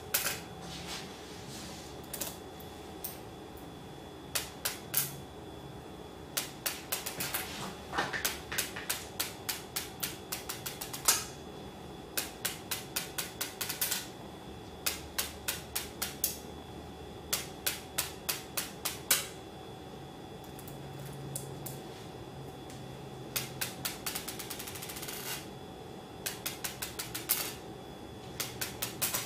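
Small neodymium magnet balls (Buckyballs) bouncing on a granite countertop and snapping together: runs of sharp clicks and clacks, several a second, in bursts with a quiet spell about two-thirds through.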